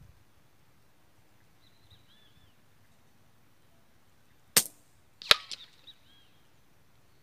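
A single .22 LR rifle shot at a clay brick: two sharp cracks about three quarters of a second apart, the second followed by a short ringing tail.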